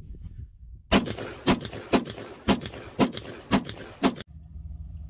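AR-15 rifle fired semi-automatically: seven shots, about two a second, starting about a second in. The audio cuts off abruptly after the last shot, leaving a low steady background noise.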